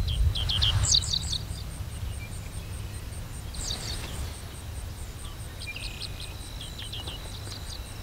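Birds chirping in several quick clusters of short high notes, over a steady thin insect tone and a low rumble that is loudest in the first second.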